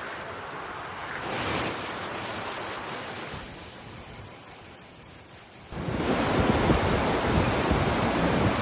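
Steady rushing noise of rain and running water that changes abruptly twice. Freezing rain falling gives way, about a second in, to floodwater running down a street. Near six seconds it turns much louder: floodwater rushing past a weir, with wind buffeting the microphone.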